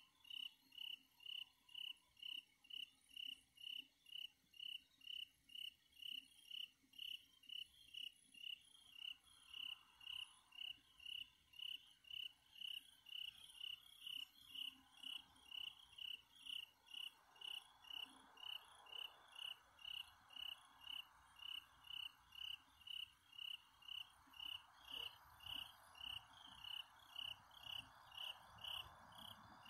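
Night insect chirping on its own in a steady, even rhythm of about two short chirps a second, faint. A soft steady hiss fades in underneath from about nine seconds in.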